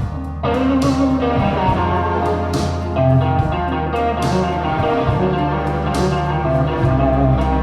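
Instrumental break in a slow blues song: electric guitar over bass and drums with cymbal strikes, played back through hi-fi loudspeakers.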